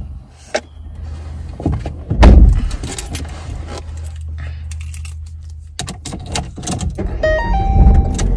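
Low steady hum of a car inside its cabin, with clicks, rattles and a loud thump about two seconds in. Near the end a short melody of stepped electronic tones begins.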